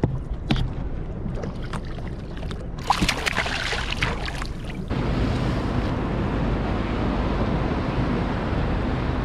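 Water splashing at the boat's side as a released bass is let go and kicks away, loudest for a couple of seconds near the middle. About five seconds in it gives way to a steady run of boat engine hum with wind and water noise.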